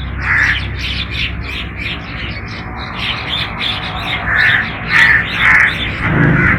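Crows cawing: one caw near the start, then three caws in quick succession about four seconds in. Rapid short high chirps run between them, over a low steady hum.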